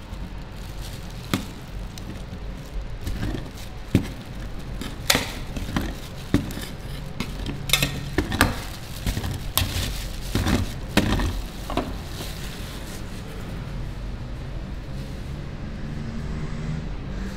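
Metal spatulas tapping, clacking and scraping on the steel cold plate of a rolled ice cream pan as a thin layer of chocolate-flecked ice cream is spread and smoothed. The sharp clacks come irregularly through the first twelve seconds or so, then give way to quieter scraping over a steady low hum.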